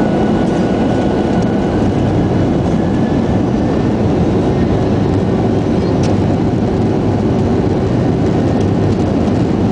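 Boeing 737 cabin noise during the takeoff roll, heard from a window seat over the wing: a loud, steady jet-engine and runway rumble with no let-up.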